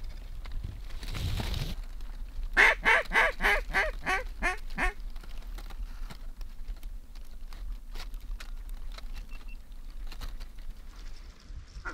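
A loud run of about ten mallard hen-style quacks over a little more than two seconds, each quack bending down in pitch, in the cadence of a hail call. A brief rustle comes before it, and faint scattered clicks follow.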